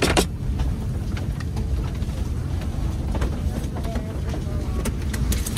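Steady low rumble of a parked Airbus A350's cabin, its air-conditioning running, with a few faint clicks.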